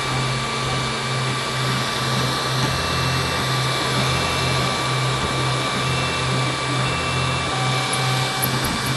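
3D printer's cooling fans whirring steadily, with a low hum pulsing about three times a second.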